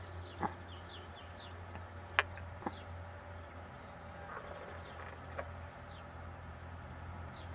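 Outdoor ambience with faint, distant birdsong chirping over a steady low hum, broken by a few sharp clicks, the loudest about two seconds in.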